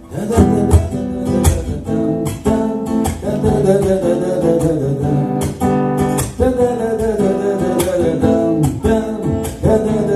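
Acoustic guitar strummed in a brisk, steady rhythm: the instrumental introduction before the singing of a bard song begins.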